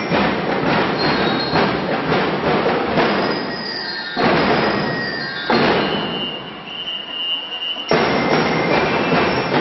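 A drum and lyre band playing: a dense drum beat under ringing metal bell-lyre notes. In the middle the drums drop back while one high lyre note is held, then the full band comes back in sharply about eight seconds in.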